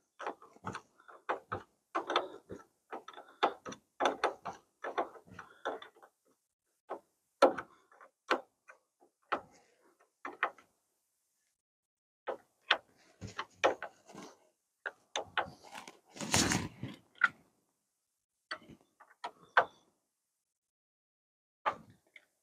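Steel combination wrench clicking and clinking on a battery cable terminal clamp as the nut is worked, in quick irregular taps with short pauses. A louder metal clatter comes about two-thirds of the way through.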